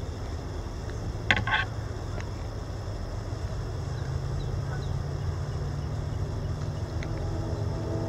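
A steady low rumble with a brief, sharp high-pitched sound just over a second in.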